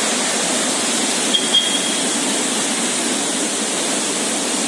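Swollen river in flash flood, its floodwater rushing in a steady, unbroken roar of noise.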